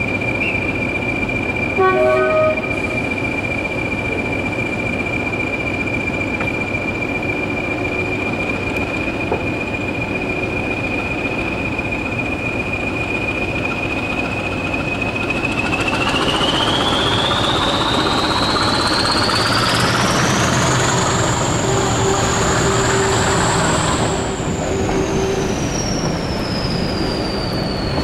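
English Electric diesel locomotive running with a steady high turbocharger whistle, with a short toot about two seconds in. About halfway through, the engine is opened up to pull the train away: the whistle rises steeply to a shrill pitch as the engine note grows louder, holds, then falls away near the end as power is eased.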